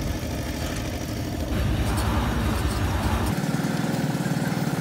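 An engine idling steadily nearby. About three seconds in its deepest part drops away and it sounds thinner.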